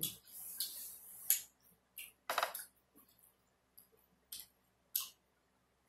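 Close-up eating sounds: short, sharp mouth smacks and clicks, about half a dozen spread over a few seconds, with a soft hiss in the first second.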